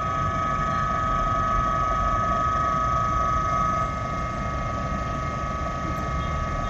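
Electric motor and hydraulic pump of a post-tensioning power pack running steadily, with a constant high whine over a low hum, while pumping oil to build stressing pressure in the jack. It eases off slightly about four seconds in.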